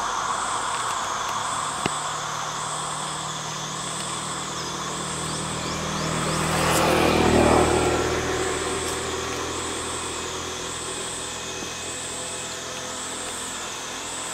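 A motor vehicle passes by, swelling to its loudest about seven seconds in and fading again, over a steady high insect drone that wavers in pitch just under once a second.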